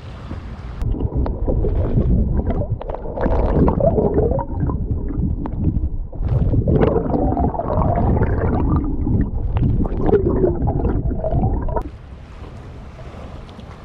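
Underwater camera audio: muffled, bubbling water rushing against the camera housing under a boat's hull. It starts about a second in and cuts off near the end, leaving wind and sea noise from the boat.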